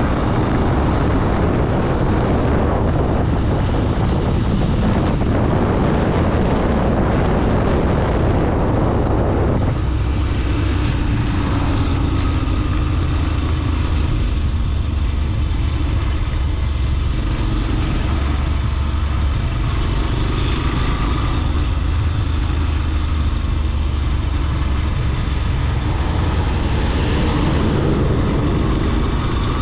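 A vehicle on the move: engine and road noise with heavy wind rushing over the microphone. About ten seconds in the rushing noise drops suddenly, leaving a low, steady engine drone.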